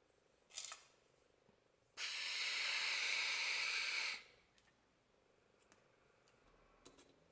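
A brief hiss about half a second in, then a loud steady hiss lasting about two seconds that starts and stops abruptly.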